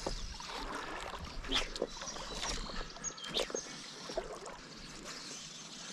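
Water sloshing and lapping close by, with a few sharp clicks and knocks scattered through, loudest about a second and a half in and again around three and a half seconds.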